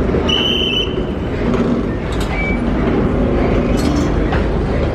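Busy city street ambience: a steady low rumble of traffic under a dense wash of noise. A short high-pitched tone sounds about half a second in, and a briefer, fainter one about two seconds in.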